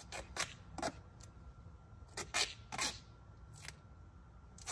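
A string of short, scratchy rustles and clicks from hand work on a pickup truck's damaged front end and headlight: about eight brief sounds, the loudest a cluster a little after two seconds in.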